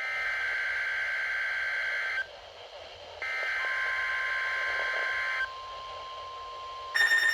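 Emergency Alert System SAME header on NOAA Weather Radio: two buzzy digital data bursts of about two seconds each, a second apart, encoding the coming severe thunderstorm watch. A steady tone comes in during the second burst and carries on, and near the end a loud, higher alert tone starts.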